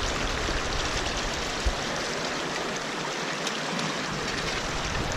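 Stream water rushing steadily over rocks, with a low rumble in the first couple of seconds and a brief knock just under two seconds in.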